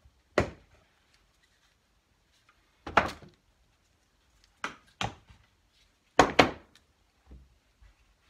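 Black quick-release bar clamps being taken off and set down on a wooden workbench, with the wooden screen-printing frame handled: a string of sharp plastic-and-wood knocks and clacks, about seven in all. The loudest come as a quick pair about six seconds in.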